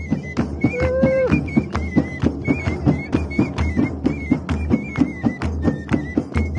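Traditional folk music: a fast, steady drum beat of about four strokes a second under a high, wavering pipe-like melody.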